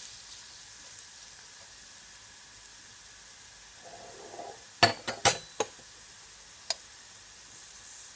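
Onions, garlic and bell peppers sizzling steadily as they sauté in a pot, with a few sharp clinks of a utensil against the pot about five seconds in and one more near seven seconds.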